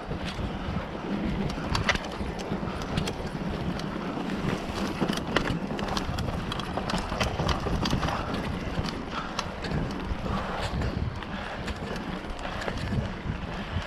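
Mountain bike riding over a bumpy dirt trail: steady tyre rumble, with frequent rattles and clicks from the bike as it goes over the ground.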